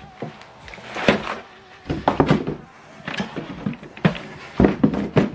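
Handling noises as a new inkjet printer and its packaging are moved about: a run of separate knocks and short rustles and scrapes, roughly one a second.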